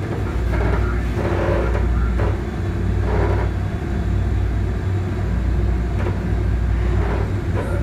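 MBTA Green Line Type 7 light-rail car heard from inside while running along the track: a steady low rumble of motors and wheels, with short rattles every second or so.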